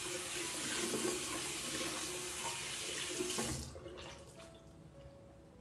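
Warm water running from a bathroom sink tap as the face is rinsed. The flow stops abruptly about three and a half seconds in, followed by a few faint clicks.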